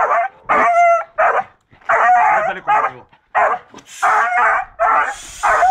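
Seven-month-old beagle puppy barking over and over at a wild boar's head: about ten short, high barks, nearly two a second.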